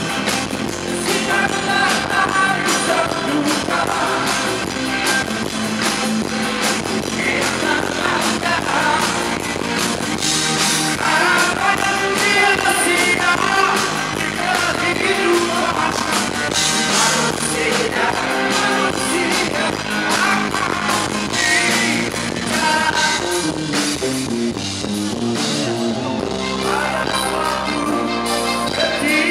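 A rock band playing live, with a male lead singer over keyboard, guitar and drums.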